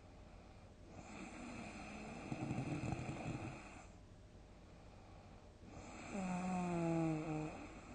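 A sleeping person snoring, two snores with a pause between. The first is a rough, rattling snore lasting about three seconds. The second comes about six seconds in and is louder, with a clear droning pitch that sinks slightly before it stops.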